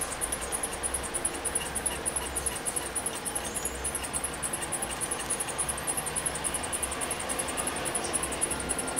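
Small low-temperature-differential Stirling engine model running, its brass flywheel spinning steadily while the mechanism makes a fast, even, high ticking.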